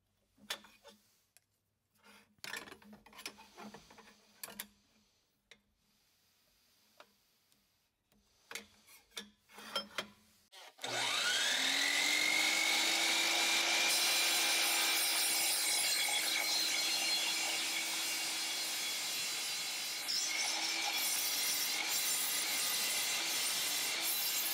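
A few clicks and knocks as the T-track is set in place, then a DeWalt miter saw motor starts about eleven seconds in with a rising whine. It runs at a steady whine while the blade is brought down through aluminium T-track, cutting it in two.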